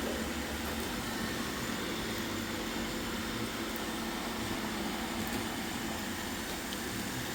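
Roomba robot vacuums running: a steady whir of the vacuum motors and spinning brushes.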